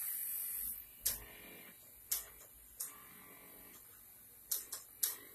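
Snap Circuits plastic parts with metal snaps clicking as they are pressed onto the base grid: about seven sharp, irregular clicks, after a short hiss in the first second.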